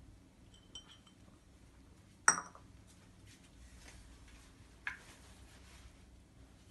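Ceramic dessert cups and a blender jar clinking. One sharp clink comes about two seconds in and a lighter one near five seconds, with a few faint ticks between.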